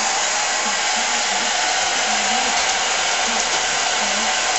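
A hair dryer running steadily, an even rush of blown air, with faint low speech underneath.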